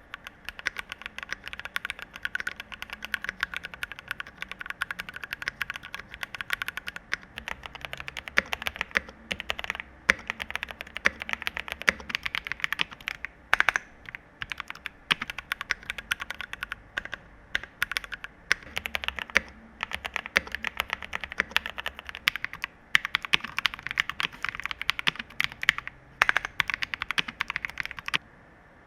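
Typing on a mechanical keyboard fitted with Noir cherry-profile doubleshot keycaps: a fast, dense run of keystroke clacks with a few short pauses.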